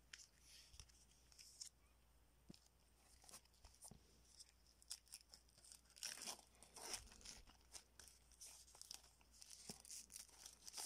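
Plastic shrink-wrap being torn and peeled off a CD case: a run of faint crinkles and crackles, busiest about six to seven seconds in.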